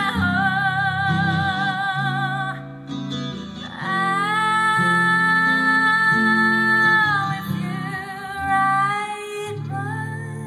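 A woman singing long held notes with vibrato, in several phrases with short breaks between them, over strummed chords on an electric guitar.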